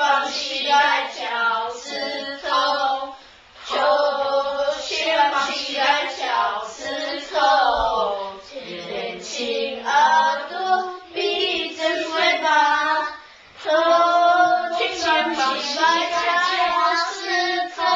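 A group of children and women singing a Mandarin action song together, in phrases with two short breaks.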